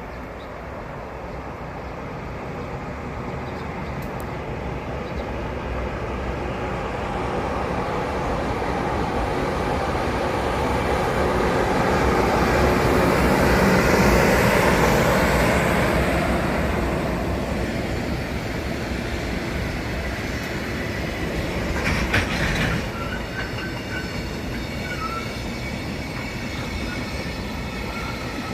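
Train approaching and running past on the rails, its wheel and rail noise building to a peak about halfway through, then easing off. A short clatter of clicks comes a little past two-thirds in.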